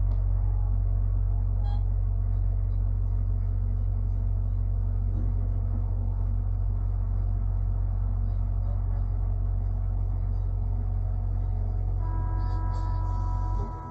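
1898 Hudson Bros-built electric tram C 29 running along the track, a steady low rumble. About twelve seconds in a steady whining tone joins, and just before the end the rumble drops off suddenly.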